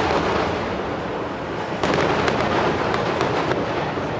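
Fireworks display: a dense run of bangs and crackling shell bursts. It eases off briefly about a second in, then picks up again with fresh sharp cracks just before the two-second mark.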